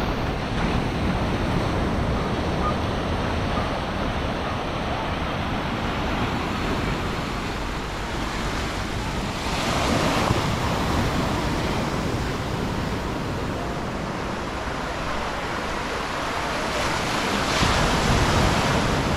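Sea surf breaking on a beach, a steady rush of water with louder surges about ten seconds in and again near the end, with wind buffeting the microphone.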